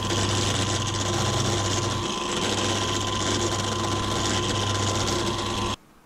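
Bench drilling machine running steadily as its bit bores holes through MDF. It stops abruptly near the end.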